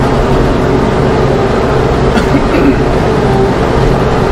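Mahindra tractor's diesel engine running steadily under load while pulling a nine-shank chisel plow through rough ground, heard from inside the cab.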